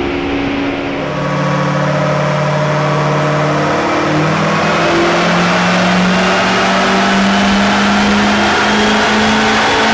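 L5P Duramax 6.6-litre V8 turbodiesel with an S369SXE turbo kit, pulling hard on a chassis dyno. It gets louder about a second in and its pitch climbs steadily through the run, with a high whine rising above it.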